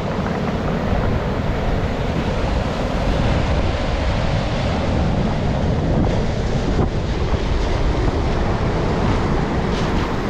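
Sea waves breaking and washing on the shore, with strong wind buffeting the microphone in a heavy low rumble.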